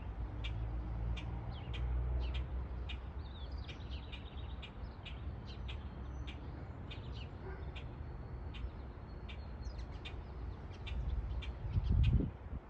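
A small songbird chirping over and over, short high chirps about twice a second, with a quick run of chirps a few seconds in. Under it a low rumble, which swells into a loud low burst near the end.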